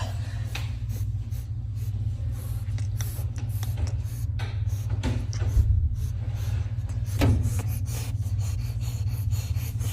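A steady low hum, with faint rustling and a few soft clicks over it.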